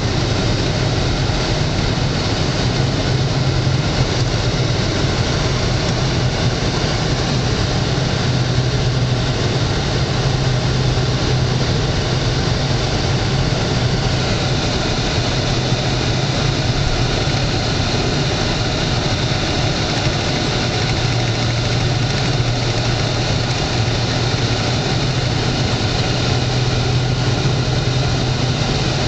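Cabin sound of a Dodge Charger with the 3.5-litre V6 cruising at a steady speed: a steady low engine drone under even tyre and wind noise.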